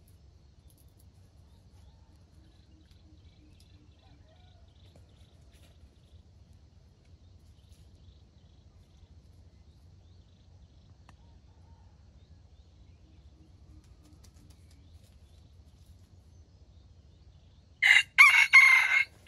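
A red junglefowl rooster crows once near the end, a short, loud crow lasting about a second and a half.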